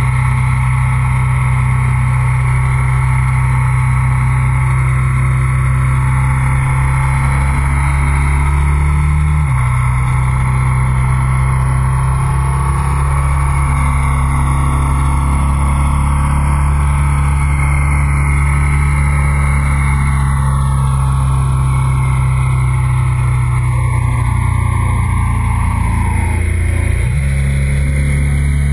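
Motorcycle engine running steadily at road speed, heard from on board, with wind rushing over it. The engine note drops suddenly about a third of the way in, dips again near the end and then begins to rise.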